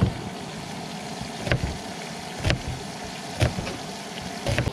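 Kitchen knife slicing an onion thin on a plastic cutting board: about five sharp knocks, roughly a second apart, each time the blade meets the board.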